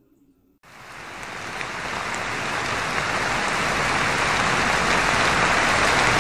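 Steady heavy rain falling, coming in suddenly just over half a second in and growing louder over the next few seconds.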